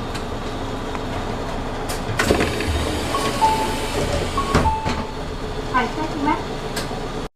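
Isuzu Erga city bus door mechanism working, with clicks and knocks over the bus's steady running noise and a few short beeps.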